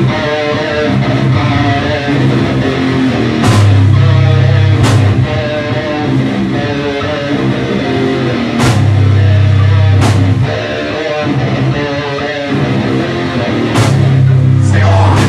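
Live rock band playing loud: a repeating electric guitar riff over drum kit and bass. Three times, a heavy low passage comes in with a cymbal crash.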